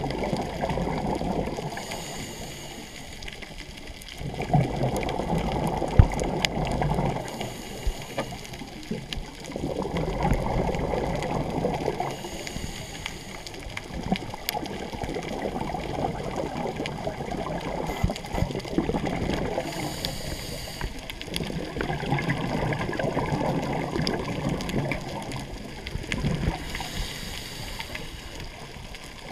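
Scuba diver breathing through a regulator underwater: a hissing inhale alternating with a longer gush of rumbling exhaled bubbles, several slow breaths in a row.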